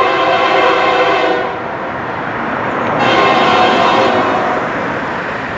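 Nathan K3HA five-chime air horn on an approaching Union Pacific locomotive, sounding in blasts: the first breaks off about a second and a half in, and the next starts about three seconds in. The locomotive and train rumble carry on underneath.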